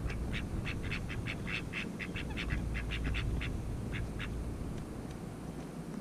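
A gull giving a fast run of short, sharp calls, about five a second, that stops a little after four seconds in.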